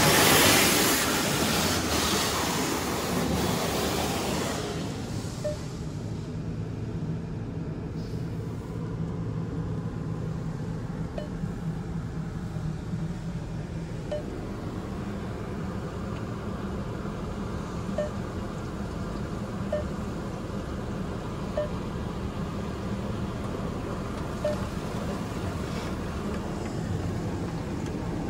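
High-pressure water jets of a Ryko Monarch II touch-free rollover car wash spraying the car, heard from inside the cabin: a loud hissing rush for the first few seconds, then dropping to a quieter steady rush with a low hum.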